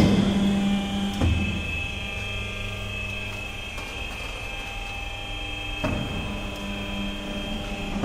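Roof-sheet crimping machine running with a steady motor hum and a high whine, with two short knocks, about a second in and near six seconds.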